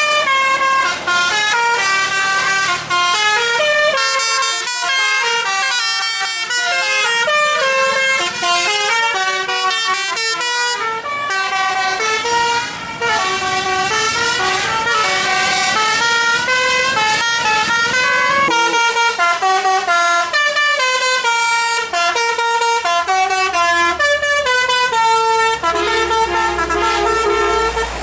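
Basuri 'telolet' bus horns, multi-trumpet musical air horns, playing quick tunes note after note without pause, with the tune changing a couple of times.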